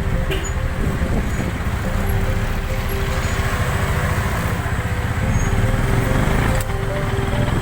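Motor vehicle running on the road: a steady low rumble of engine and road noise, with soft background music holding long notes over it.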